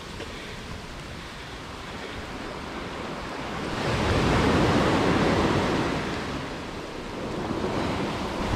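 Sea surf washing onto the shore: a steady rush, with one wave surging in about four seconds in and falling away a few seconds later.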